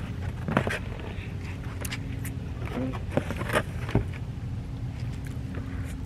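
Scattered clicks and rustles of hands picking through a pile of boiled crawfish shells and plastic bags, over a steady low outdoor rumble.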